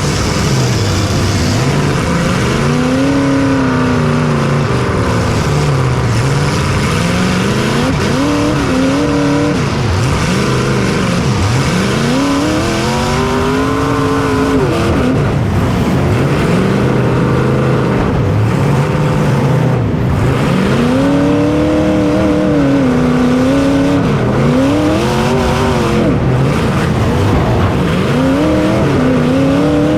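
Race vehicle's engine heard from onboard, revving up and backing off over and over, its pitch climbing and falling about every four to five seconds, over a steady hiss.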